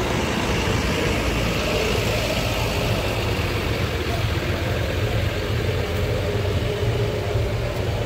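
Large tour bus engine running close by, a steady low rumble.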